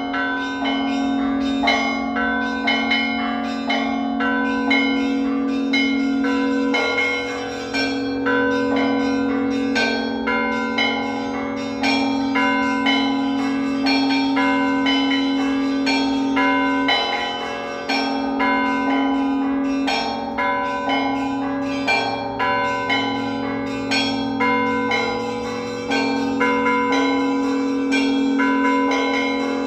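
Russian Orthodox church bells being rung together. Smaller, higher bells are struck in a quick, steady rhythm over the long-ringing tones of the lower bells.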